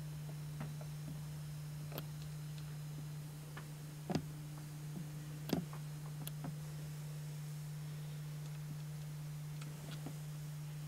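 A steady low hum with a few scattered light knocks and clicks; the two loudest come about four and five and a half seconds in.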